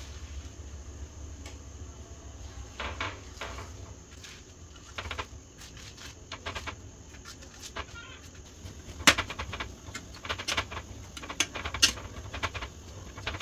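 Wet spinach leaves dropped by hand into a steel pot of heating water, with soft rustles and ticks, over a low steady rumble. From about nine seconds in, a steel ladle clicks sharply against the steel pot several times as the leaves are stirred.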